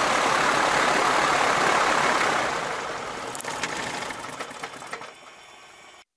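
Piper PA-28-140 Cherokee's four-cylinder Lycoming engine, heard inside the cabin, idling and then being shut down: the sound dies away from about two and a half seconds in, with a few ticks as the propeller runs down, and is gone by about five seconds.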